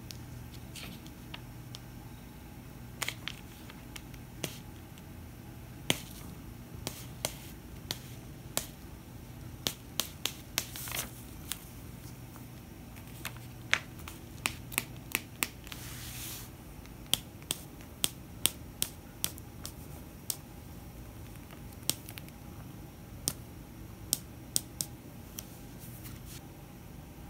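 A sheet of paper crackling and ticking under a cat as it shifts and settles on it: scattered sharp clicks at an irregular pace, with a brief rustle about sixteen seconds in, over a low steady room hum.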